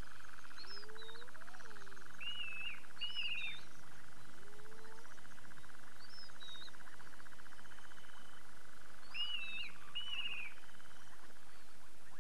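African bush ambience: birds give short whistled calls that repeat every few seconds, with a few lower rising whistles in the first half. Under them runs a steady, rapid pulsing trill of insects or frogs.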